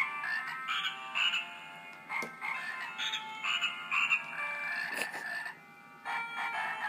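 A frog-themed sound-chip greeting card playing through its tiny speaker: electronic frog croaks set to a jingly tune in short repeated notes. It stops briefly about two-thirds of the way through and then starts again.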